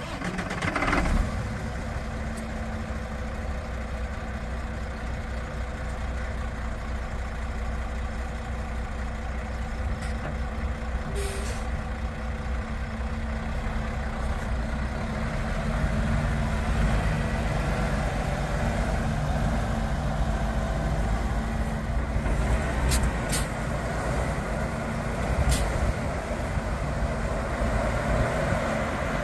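Diesel engine of an International ProStar semi-truck tractor running steadily, getting a little louder about halfway through as the truck moves off. A few brief sharp sounds stand out over it.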